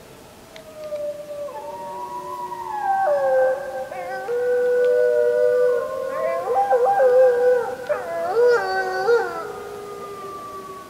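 A chorus of wolves howling: several long howls overlapping at different pitches, building up after about a second. In the middle they quaver and break into wavering calls, then thin to a single fading howl near the end.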